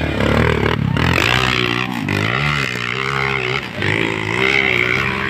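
Off-road motorcycle engines revving, their pitch rising and falling over and over.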